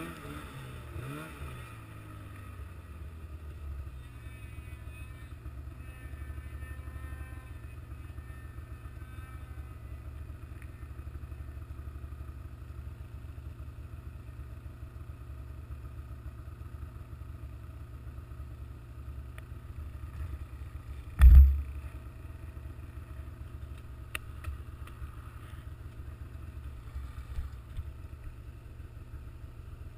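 A vehicle engine revs briefly and then settles to a steady idle. Near two-thirds of the way through comes one short, loud thump.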